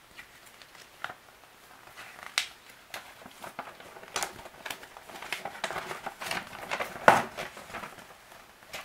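A folded paper instruction manual being unfolded and handled: irregular paper rustling and crinkling, loudest about seven seconds in.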